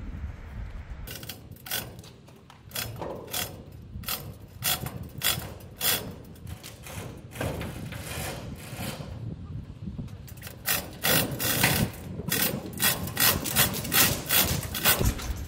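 Bin jacks being cranked to lift a steel grain bin under load: a run of sharp mechanical strokes, about two a second, coming faster and louder in the last few seconds, with wind rumbling on the microphone.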